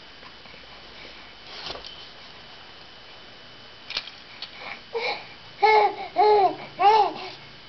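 A three-month-old baby cooing and babbling: quiet at first, then from about five seconds in a run of short coos, each rising and falling in pitch, three in quick succession near the end.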